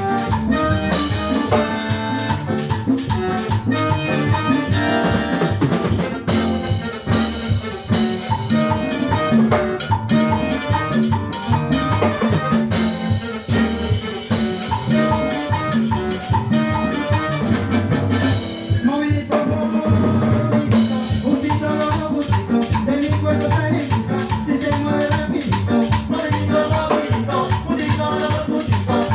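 Latin dance orchestra playing, with drum kit and percussion keeping a busy, steady beat. About two-thirds of the way through, the drums drop out for a couple of seconds, then the full beat comes back.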